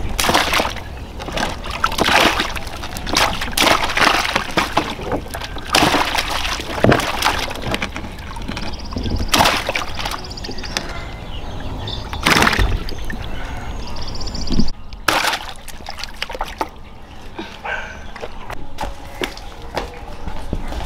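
Water splashing and sloshing in irregular, repeated strokes of varying strength.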